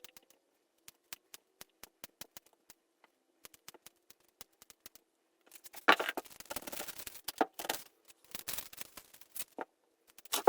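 Kitchen prep handling: scattered light ticks for the first half, then about four seconds of louder rustling and scraping, from chopping and moving ingredients on a cutting board.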